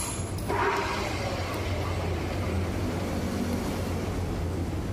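Steady low machine hum, with a short clatter about half a second in.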